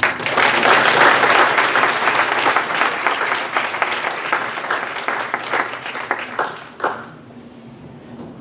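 Audience applause, loudest over the first couple of seconds, then thinning out and dying away about seven seconds in.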